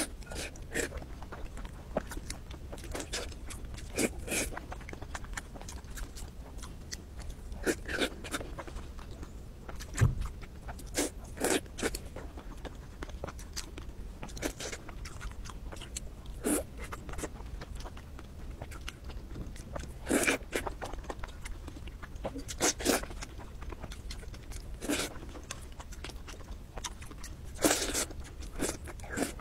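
Close-miked eating: biting and chewing fried pieces of food, with irregular wet, crunchy chews every second or few. A dull thump about ten seconds in.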